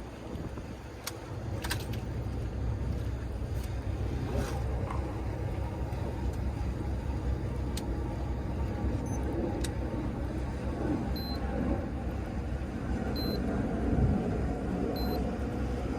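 Fishing boat's engine running steadily, a low hum that grows louder about two seconds in.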